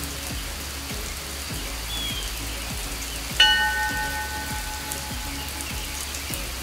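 Steady rain falling, with a single bird call. About halfway through, a bell is struck once and rings for about two seconds.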